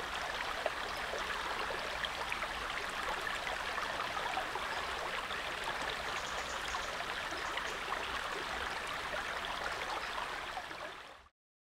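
Steady rush of running water from a stream, fading out near the end.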